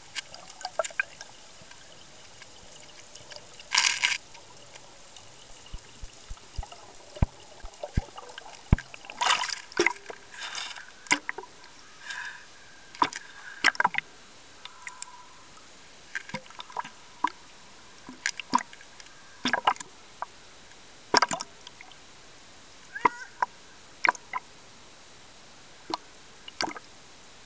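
Sea water sloshing and splashing around a camera at the waterline, in short uneven splashes and gurgles, with a louder rush of water about four seconds in.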